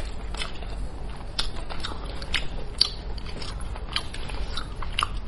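Gloved hands tearing meat and bone apart on a cooked sheep's head, giving irregular sharp clicks and crackles, several a second.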